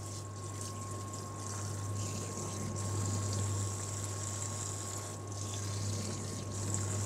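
Kitchen tap running steadily, its stream splashing onto morel mushrooms in a plastic colander as they are rinsed by hand.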